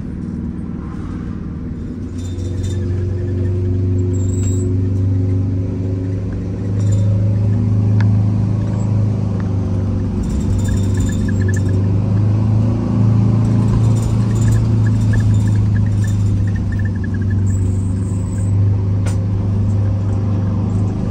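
Detroit Diesel 8V92TA two-stroke V8 diesel of a Wanderlodge motorhome running as the coach drives along, heard from the driver's cab: a steady low drone with road noise. It grows louder about two seconds in and again about seven seconds in, then holds steady.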